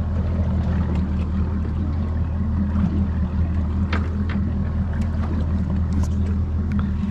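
Boat engine running steadily at idle, a low even hum, with a few faint clicks about four seconds in.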